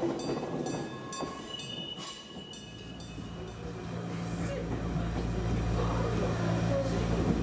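Kumamoto Electric Railway 6000 series electric train passing and fading away, with a few high steady tones as it goes. About four seconds in, a steady low hum and rumble of the train running, heard from inside its cab.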